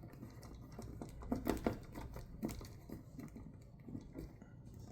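Faint, irregular light clicks and taps of small metal parts and tools being handled during reassembly of a titanium folding knife.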